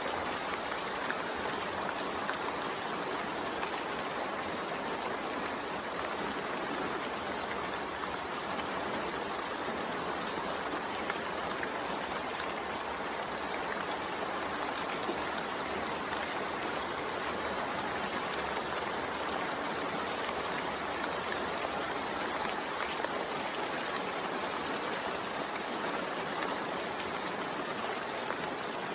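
Steady rain falling, an even continuous hiss of drops with no letup.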